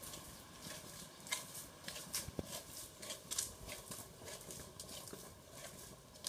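Footsteps on a brick-paved path: a run of short, irregular taps.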